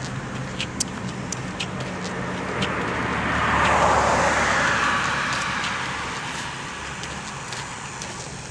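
A car passing by: its road noise swells to a peak about four seconds in, then fades away. Light footstep clicks from someone walking run underneath.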